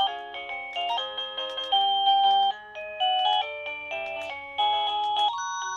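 Roybens wireless doorbell ringer playing an electronic chime tune: a melody of clean synthetic notes, several sounding together, that change pitch every fraction of a second.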